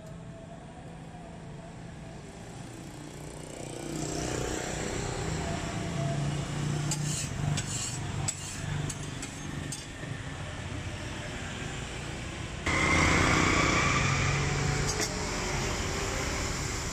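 Street-stall background of steady hum and traffic noise, with a few sharp clicks of a metal scraper on the steel flat-top griddle around the middle. The background suddenly gets louder about thirteen seconds in.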